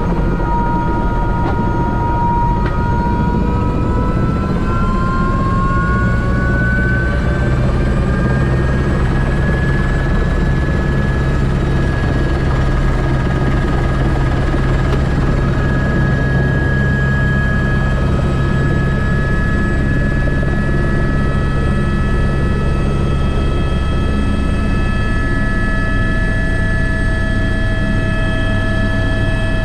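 Airbus H125 (AS350 B3) helicopter's turboshaft engine and rotor running, a steady drone under a turbine whine that rises in pitch for several seconds and then holds steady.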